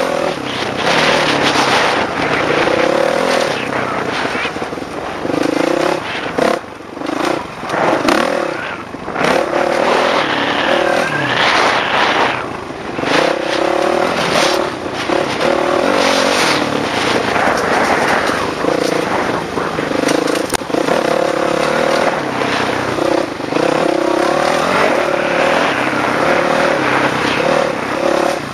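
Dirt bike engine revving up and down as it is ridden over a dirt track, its pitch rising and falling again and again, with brief throttle-offs a few seconds in. Wind rushes loudly over the on-bike microphone.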